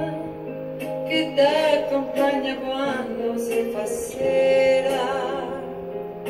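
A woman singing an Italian song, her held notes wavering with vibrato, over a sustained instrumental accompaniment.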